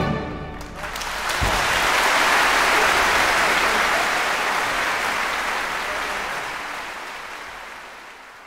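Applause that swells about a second in and then slowly fades out.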